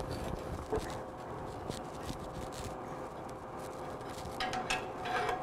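Red-hot steel bar being twisted in a vise with a blacksmith's twisting wrench: a steady faint hum with a few light knocks. Near the end comes a short run of ringing metal-on-metal clinks from the wrench against the hot bar.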